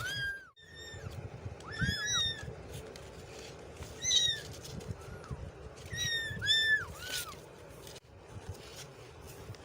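Kittens mewing: a run of short, high-pitched meows that rise and fall, some overlapping, then a pause in the last couple of seconds.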